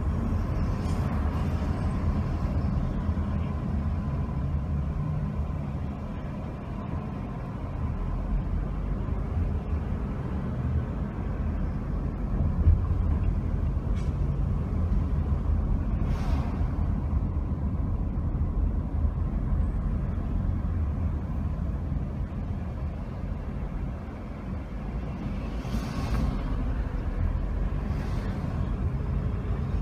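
Car driving slowly through city streets: a steady low engine and road rumble, with a few short hisses partway through and near the end.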